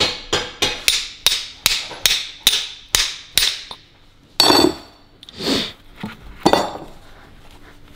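Hammer striking steel, about a dozen quick ringing blows at roughly three a second, then a few heavier knocks a second apart: knocking a leftover wheel-bearing race off a rear wheel hub.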